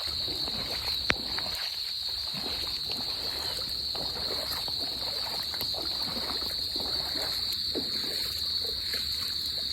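Steady high-pitched chorus of frogs, trilling like cicadas, with shallow floodwater sloshing and splashing underfoot as someone wades through it. A single sharp click about a second in.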